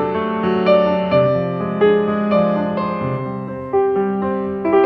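Background piano music, a melody of notes struck about every half second.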